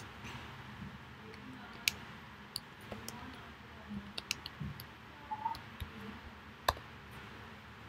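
Computer keyboard keys clicking irregularly as a web address is typed in slowly, with sharper clicks about two seconds in and near the end.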